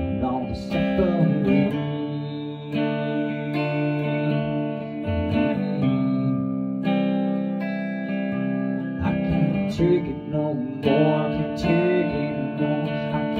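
Slow song on a strummed guitar, with a man's voice singing over it at times.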